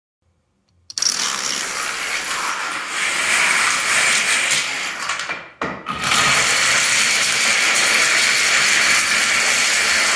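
Plastic dominoes toppling in a chain reaction: a dense, continuous rapid clatter of small tiles clicking against one another. It starts about a second in and breaks off briefly a little past halfway.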